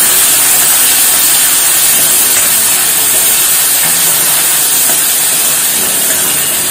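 Chopped tomato, onion and green chilli sizzling in hot oil in an aluminium kadhai as they are stirred with a steel ladle: a loud, steady hiss.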